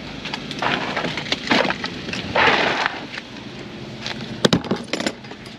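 Detailing gear being handled in a storage compartment: rustling and clattering, a longer scraping rush about two and a half seconds in, then a few sharp knocks near the end.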